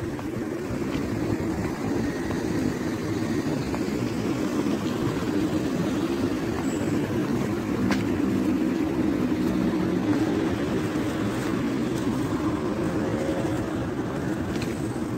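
Steady low hum of a car driving: engine and road noise with no sharp events.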